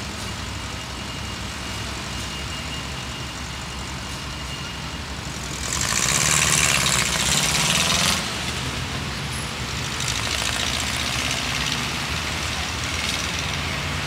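Street traffic with a heavy vehicle's engine running steadily. About six seconds in, a loud hiss lasts roughly two seconds.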